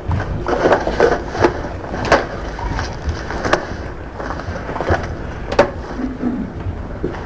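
Irregular knocks and clicks over shuffling noise, about one or two a second, as people move about and bump wooden courtroom furniture and seats.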